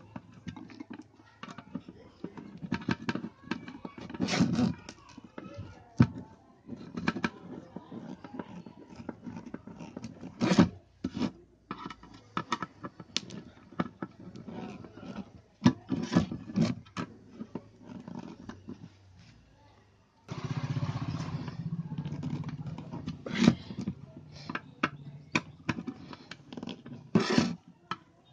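Screwdriver and metal and plastic iron parts knocking, clicking and scraping on a workbench while an electric iron is screwed back together. About two-thirds of the way in, a steady noise runs for roughly three seconds.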